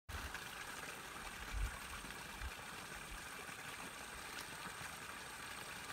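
Faint steady outdoor background hiss, with two brief low thumps about one and a half and two and a half seconds in.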